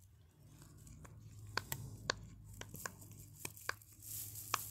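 Faint, irregular sharp clicks and crackles from a plastic fidget toy being worked in the hands, about nine clicks over a few seconds.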